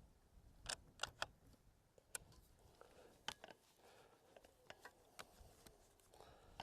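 Near silence with about a dozen faint, scattered clicks and taps, like small handling noises.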